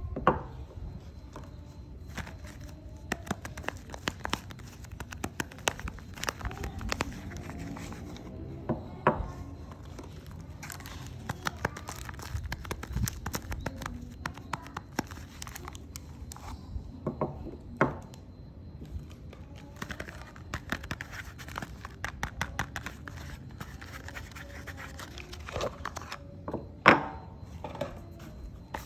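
Soap bars being unwrapped by hand: packaging crinkling and tearing in a run of small crackles, with a few louder knocks, the loudest near the end.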